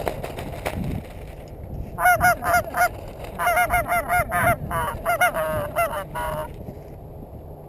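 Goose honking: a rapid run of loud, close honks and clucks starting about two seconds in and stopping about four and a half seconds later.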